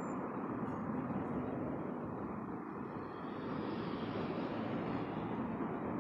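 Road traffic going by steadily: a continuous hum of engines and tyres with no single standout event.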